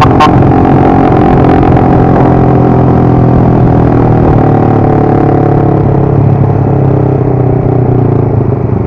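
Motorcycle engine running steadily under way, its pitch easing down a little about halfway through, with a single sharp click right at the start.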